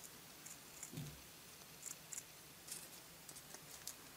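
Scissors cutting through paper-backed silver tape: faint, short snips and clicks scattered through, with a soft low thump about a second in.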